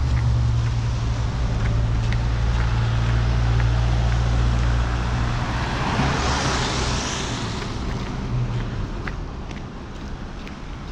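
Street traffic: a low engine drone that fades out after about eight seconds, and a car passing close by about six seconds in with a swell of tyre noise. Faint regular footsteps tick about twice a second.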